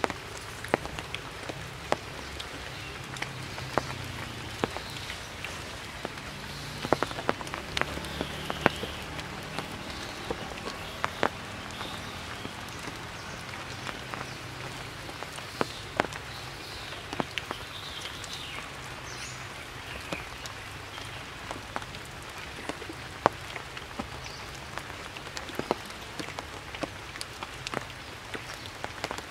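Steady rain falling through tree foliage, with frequent sharp, irregular drop hits.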